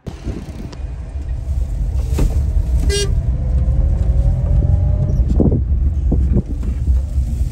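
A car driving, heard from inside the cabin: a loud, steady low rumble of engine and road noise, with a short vehicle horn toot about three seconds in.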